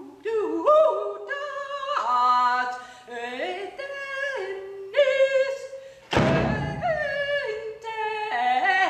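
A woman's voice singing in short phrases that leap and slide between pitches, as part of a contemporary solo piece for contrabass clarinet, voice and bass drum. About six seconds in there is a single bass drum hit that rings on briefly.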